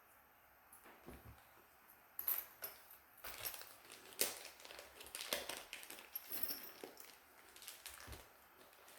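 Small screwdrivers and their packaging being handled: scattered faint clicks, taps and light rattles, starting about two seconds in and dying away shortly before the end.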